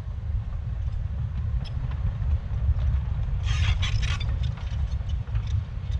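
CAT 953K track loader running with a steady low diesel rumble. A brief cluster of high metallic squeaks and clanks comes about three and a half seconds in, typical of steel crawler tracks moving.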